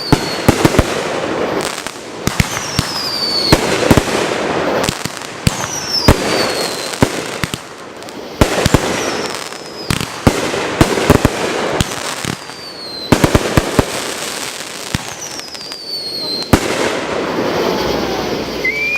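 Fireworks finale: a rapid barrage of sharp bangs from aerial shells over a continuous crackle, with high whistles falling in pitch every second or two.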